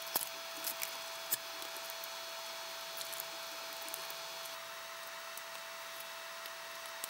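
Faint scattered clicks and light taps of hands handling a circuit board as chips are swapped in their sockets, over a steady faint tone and hiss.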